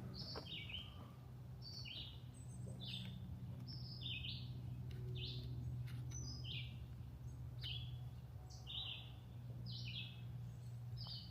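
A small bird chirping over and over, short falling notes about once or twice a second, over a low steady hum.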